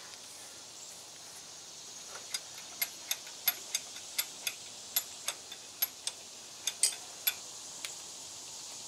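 Light hammer taps on a steel driveshaft yoke held in a bench vise, to free up a newly installed U-joint that is binding tight. About sixteen quick, sharp taps at an uneven pace begin about two seconds in and stop near the end.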